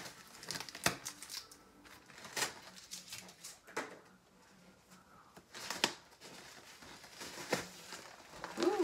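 A soft paper dust sleeve rustling and crinkling as it is pulled up and off a new iMac's screen, in several short separate swishes.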